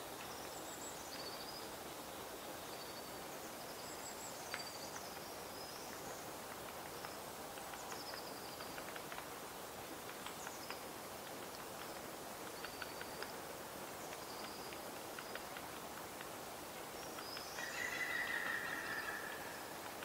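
Great spotted woodpecker pecking at tree bark, scattered faint taps over a steady outdoor hiss, with small birds chirping faintly and high-pitched in the background. Near the end a louder rasping sound lasts about two seconds.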